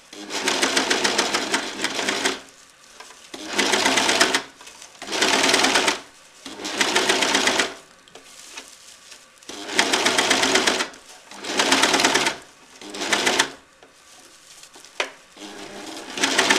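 Household electric sewing machine stitching along the raw edge of coarse burlap, which is being finished with an overlock-type stitch. It runs in about eight short spurts of a second or two, stopping between them.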